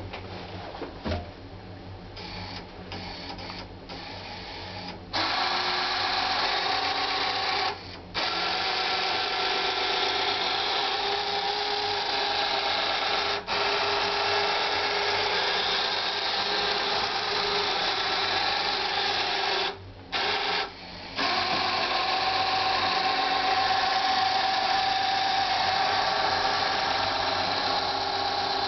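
Electric motors of a Lego RCX boat's azimuth propeller drive whirring through plastic gears. After a few short bursts the motors start up about five seconds in and run steadily, stopping briefly three times.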